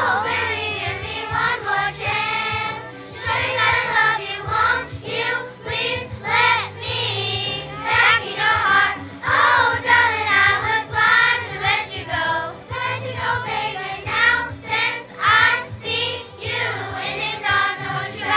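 A children's choir singing a song, accompanied on an electronic keyboard.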